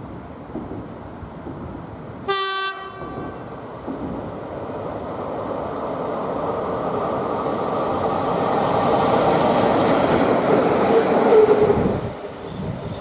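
A locomotive sounds one short horn blast, then a train passes through the station. Its rumble and wheel clatter grow steadily louder to a peak near the end and then cut off suddenly.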